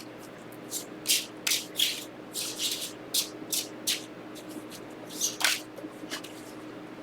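Gold-foil tarot cards being shuffled by hand: a run of quick, sharp papery swishes and flicks that starts about a second in and stops near the end.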